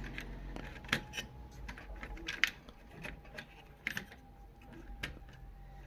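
Scattered light clicks and taps at irregular intervals, hands handling small computer parts on a workbench.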